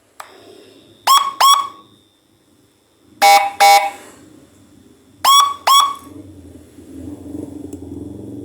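Electronic siren module through a 12 W horn speaker (Narae N90) giving three pairs of short, loud, horn-like blasts about two seconds apart, the middle pair a two-note tone. A faint click comes just before the first blast, and a low hum builds faintly near the end.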